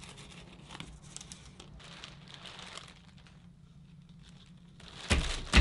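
Sandpaper sheet rustling and crinkling while glue is brushed onto its back and it is pressed onto a sanding block, with soft scratchy brush strokes over a faint steady hum. It gets suddenly louder about five seconds in.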